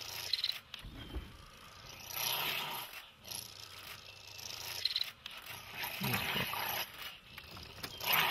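Spotted hyenas and a honey badger fighting: irregular bursts of growling and snarling, the loudest coming near the end.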